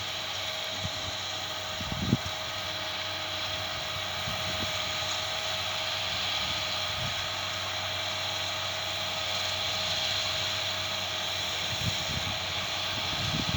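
New Holland T6 tractor and round baler running steadily while baling hay: a continuous mechanical hum with a thin, steady whine over it, and a couple of brief low knocks.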